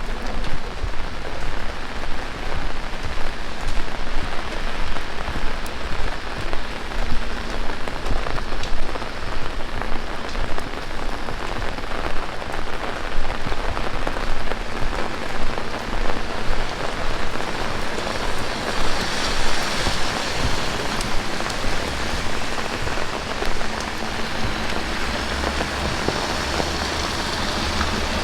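Heavy rain falling, a dense steady hiss with a close patter of drops. The hiss brightens briefly about two-thirds of the way through, and a low rumble rises near the end.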